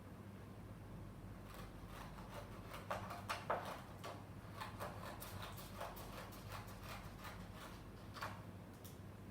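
Scissors cutting paper: a faint, irregular run of short snips and rustles, thickest in the first half, over a steady low hum.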